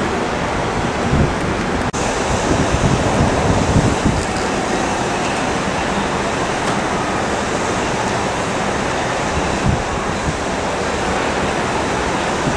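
Wind buffeting the microphone: a steady rushing noise with a gusty low rumble, over distant jet airliner engine noise. A brief break about two seconds in.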